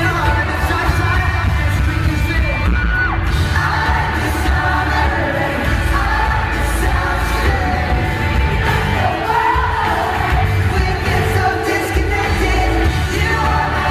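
A pop-rock band playing live, with a sung lead vocal over loud bass and drums.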